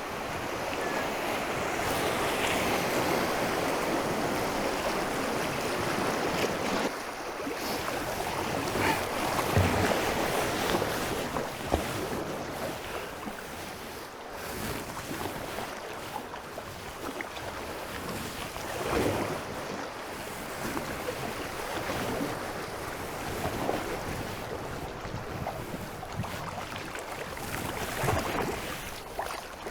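Fast-flowing river water rushing and splashing around a kayak on a stretch of current, with a few louder splashes and wind buffeting the microphone.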